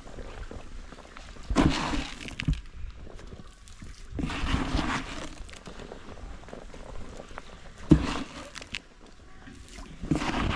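Intermittent bursts of rustling and splashing as fish feed is scattered by hand onto pond water, with one sharp knock about eight seconds in.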